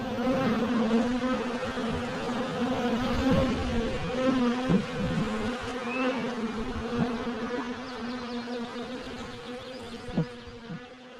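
Honey bees buzzing in flight around a hive entrance: a steady hum that wavers as individual bees pass close, fading near the end.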